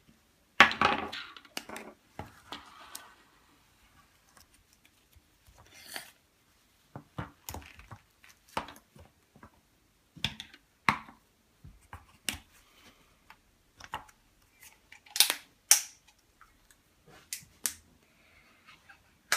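Scattered sharp clicks and knocks of Play-Doh tubs and plastic tools being handled, with the loudest click and a short rustle near the start.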